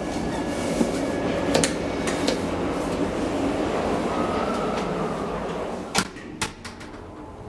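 Schindler hydraulic elevator running as the car travels: a steady whooshing hum with a few light clicks. About six seconds in it stops with two sharp clunks as the car arrives.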